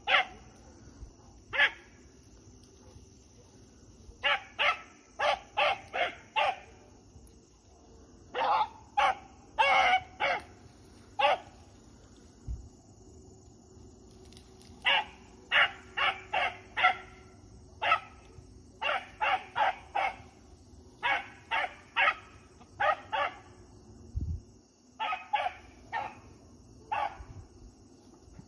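Rabbit hound barking in quick clusters of short chop barks with pauses between, the barking of a hound working a rabbit's track.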